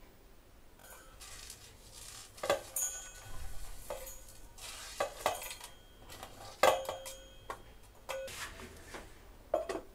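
Whole spices (peppercorns, cloves, cardamom, seeds) being tipped into an empty stainless-steel grinder jar: scattered light clinks and rattles as they strike the metal, a few with a brief ring.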